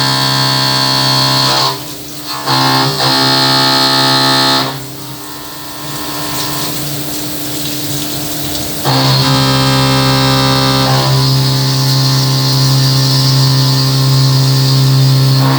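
Haas VF-2SS CNC vertical mill high-speed milling: a steady, many-toned whine from the spindle and cutter in the cut. It breaks off briefly about two seconds in, then for about four seconds from near the five-second mark, when a softer hiss is left, before the whine resumes.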